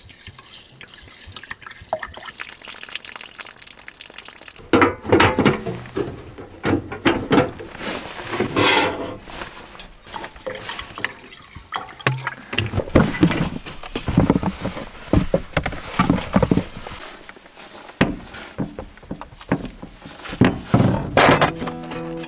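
Water poured from a glass bottle into a stainless steel saucepan of rice, then a run of knocks and clatters as the pan and bottle are handled and set down on a camping stove.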